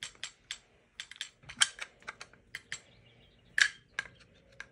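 Sharp metal clicks and taps at irregular spacing, about a dozen, as a long coil spring and metal stock parts of a G3-pattern rifle are handled and fitted together by hand; the loudest comes about three and a half seconds in.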